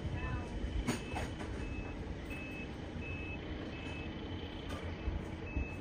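Reversing alarm on heavy construction machinery beeping at a steady pace, about once every 0.7 seconds, over the low rumble of diesel engines. There is a sharp click about a second in.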